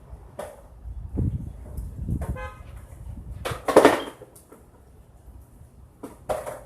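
Wind gusting across the microphone in low rumbles, with a brief pitched horn-like tone about two and a half seconds in and a loud rushing burst of noise near four seconds, then a shorter one near the end.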